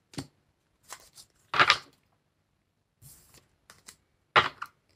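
A deck of tarot cards shuffled by hand: several short, separate swishes of cards sliding against each other, with brief pauses between.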